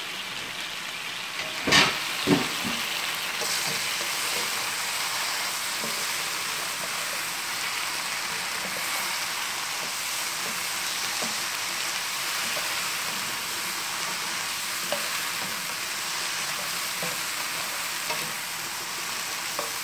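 Broccoli florets and mushrooms sizzling steadily in hot oil in a wok as they are stir-fried with a plastic spatula. Two sharp knocks come about two seconds in.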